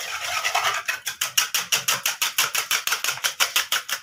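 A whisk beating egg, sugar and milk batter in a bowl: fast, even strokes about five a second, starting about a second in after a short scratchy hiss.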